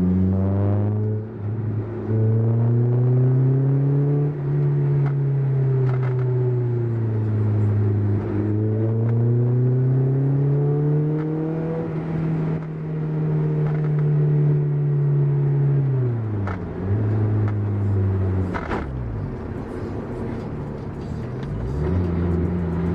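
Honda S2000 AP1's four-cylinder engine running through a J's Racing 70RS single-exit exhaust with a decat test pipe while the car is driven. The exhaust note climbs slowly in pitch over several seconds and then falls, dropping quickly in pitch twice near the end.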